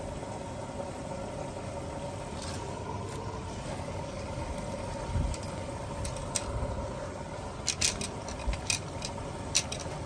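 Beko WMB 61631 front-loading washing machine tumbling vacuum cleaner hoses in its wash: a steady motor hum with water churning in the drum. From about three-quarters of the way in, a run of sharp clicks and knocks as the hoses strike the drum and door glass.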